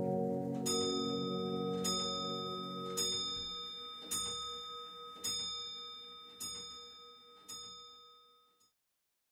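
Closing background music fading out: a held chord dies away while a bell-like chime note is struck seven times, about once a second, each strike softer, until the music ends.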